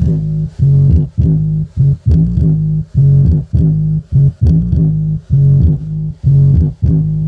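DJ song played through a 15-inch subwoofer driven by a 12-volt 2.1 amplifier with the subwoofer volume turned up. Loud, heavy bass notes pulse about twice a second, with almost no treble.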